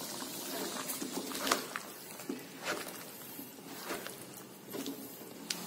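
Wooden spatula stirring thick chili and coconut-milk sauce in a wok, with quiet soft scrapes and light taps against the pan about once a second.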